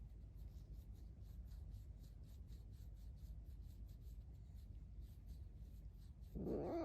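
Faint rubbing and scratching for most of the time, then, about six and a half seconds in, a pet fox's short squeaky call with a wavering pitch, the loudest sound here.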